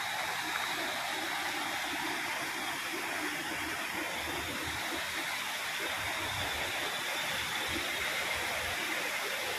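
Steady, even rush of water, in keeping with a river swollen by a day of rain and in flood.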